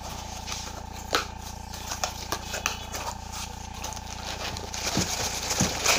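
Cardboard laptop box being opened by hand: flaps and tab pulled up and handled, with scattered taps and knocks and a rustling, scraping cardboard noise that grows louder near the end.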